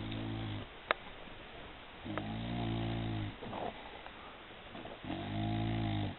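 Dog snoring: a pitched, droning snore about every three seconds, each lasting about a second, with a sharp click just under a second in.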